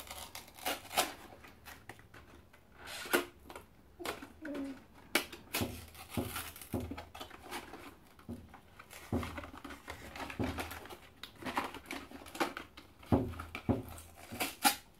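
Small cardboard Kinder Joy box being torn open and handled by hand: irregular crinkling and tearing of the packaging, a string of short sharp crackles at uneven intervals.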